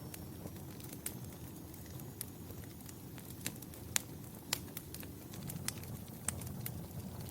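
Fireplace fire crackling: irregular sharp pops and snaps over a steady low rumble of the flames, the loudest pops about four seconds in.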